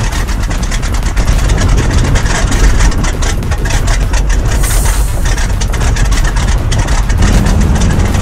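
The Pratt & Whitney R-985 nine-cylinder radial engine of a de Havilland DHC-2 Beaver floatplane runs loudly as the plane taxis and begins its takeoff run on the water. It makes a deep rumble with a rapid crackle of exhaust pulses, and a steadier low drone sets in near the end.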